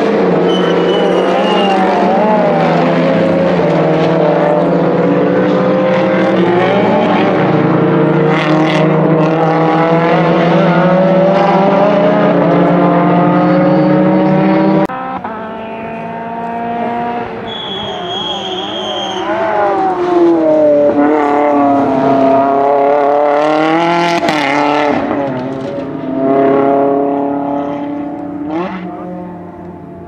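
Race car engines under hard acceleration. Their pitch climbs and drops back in steps as the cars shift gears. About halfway the sound cuts to a quieter engine note that falls as a car slows and then climbs again as it accelerates.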